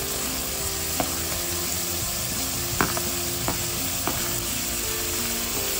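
Chopped vegetables sizzling in hot oil in a stainless steel kadai over high flame as green beans are scraped in from a plate with a slotted spoon. A few sharp clicks of the spoon against the plate and pan come through the steady sizzle.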